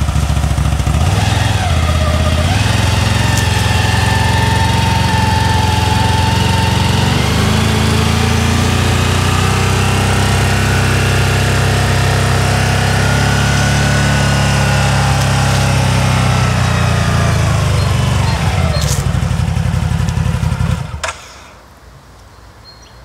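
CFMOTO Gladiator X1000 ATV's V-twin engine running, revved up twice and easing back down, then cutting off sharply near the end.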